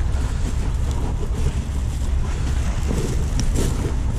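Wind buffeting the microphone as a steady low rumble, over the wash of the sea against the shore.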